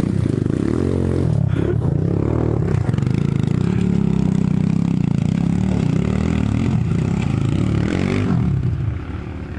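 Dirt bike engine revving under load on a steep rocky climb, its pitch rising and falling with the throttle. The sound drops away shortly before the end.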